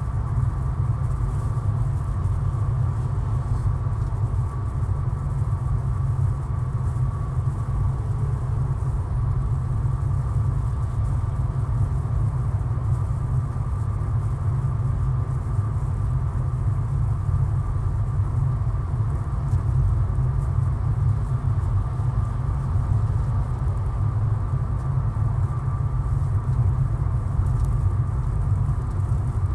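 Steady road and engine rumble heard inside the cabin of a car cruising on a highway, deep and even, with a faint steady whine above it.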